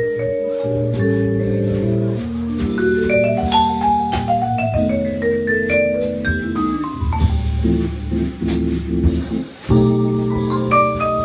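Jazz vibraphone with a drum kit: ringing, sustained mallet chords, with a fast run of notes up and then stepping back down the bars in the middle, over light cymbal strokes. A new chord comes in near the end after a brief drop in level.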